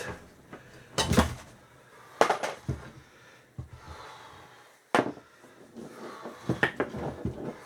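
Separate sharp knocks and clanks of metal office-chair parts being struck and worked loose, a second or more apart, with a quick run of clatter near the end.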